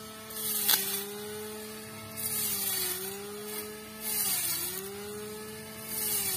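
Cordless electric string trimmer running flat out with a steady whine. Its pitch sags each time the line bites into thick grass, with a burst of swishing from the cut grass about every two seconds, and a sharp tick about a second in. The motor is overvolted on a 6S battery pack in place of its stock 5S, spinning faster than standard.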